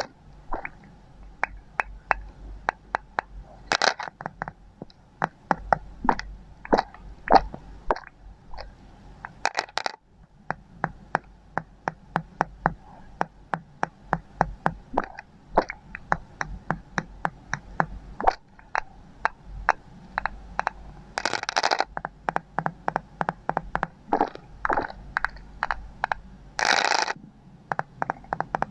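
Small glass ampoule bottles being knocked and tapped in an irregular stream of sharp clicks, two or three a second. Two short scraping sounds break in during the second half.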